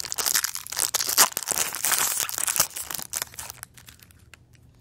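Foil wrapper of a 1999 Donruss football card pack crinkling and tearing as it is opened and the cards are pulled out. The crinkling dies down after about three seconds, leaving a few faint ticks.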